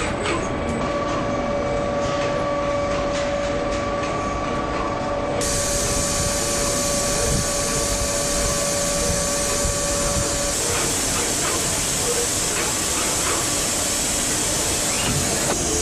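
Automated stator lacing machine running: a steady mechanical hum and hiss with a couple of held tones that shift about ten seconds in, and a few faint clicks in the first seconds.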